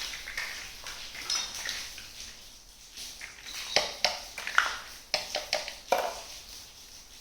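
Small toy kitchenware being handled, clinking and tapping against itself, with a quick run of sharp clicks in the second half.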